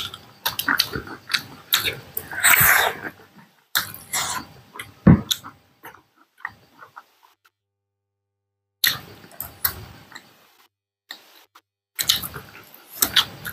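Close-miked eating: wet chewing and lip smacking from two people eating with their hands, in clusters of quick clicks and smacks. The sounds stop for a couple of seconds midway, then start again.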